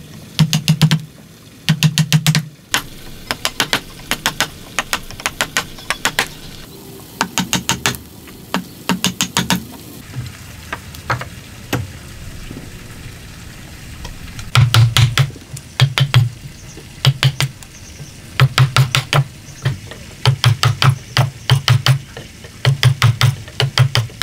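A wooden mallet strikes a steel chisel in quick runs of sharp taps, driving it into a clamped block of wood to cut a joint socket. The strikes are quieter for a few seconds in the middle.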